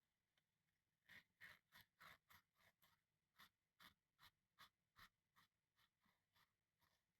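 Rhythmic hand-worked abrasive strokes, scratchy and about three a second. They start about a second in and grow fainter toward the end.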